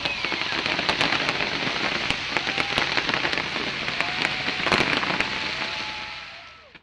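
Aerial fireworks crackling: a dense, rapid crackle with a few sharper cracks, fading out near the end.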